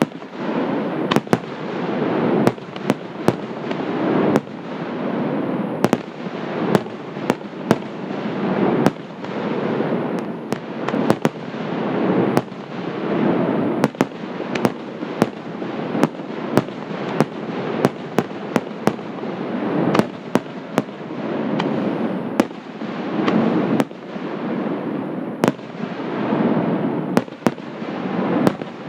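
Fireworks display at close range: a rapid barrage of sharp bangs, about one or two a second, over a continuous dense noise of bursting shells that swells and eases every few seconds.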